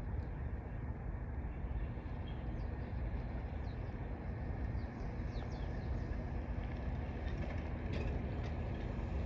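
Aircraft engine drone, steady and unbroken, with a steady hum over a low rumble.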